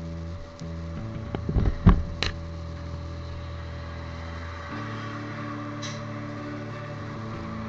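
Background music of sustained chords that change every second or few. About two seconds in there is a brief cluster of sharp knocks and clicks.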